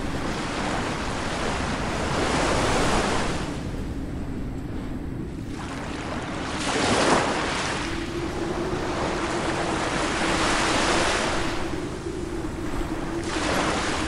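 Ocean surf: waves breaking and washing in four rising and falling surges, the sharpest crash about seven seconds in.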